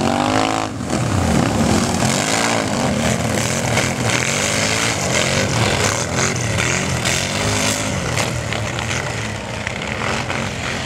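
Racing ATV engines running hard, their pitch rising and falling repeatedly as the throttle is worked, with more than one machine heard near the start.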